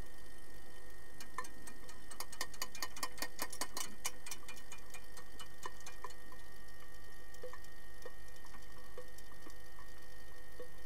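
Underwater hockey play heard underwater in a pool: a quick flurry of sharp clicks and knocks from sticks and puck, then scattered single ticks, over a steady faint hum.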